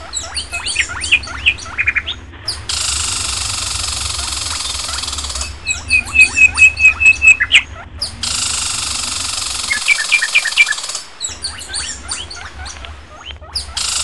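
Birds chirping and calling in dense bursts of short high notes. A quick run of about eight sharp repeated chirps comes midway. Between the bursts is a steady outdoor hiss, and the sound cuts off abruptly a few times.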